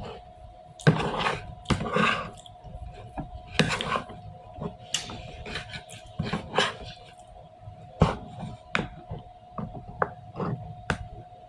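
Close-up eating sounds of a person chewing sweet potato pie: irregular wet chewing and lip smacks, with a steady hum underneath.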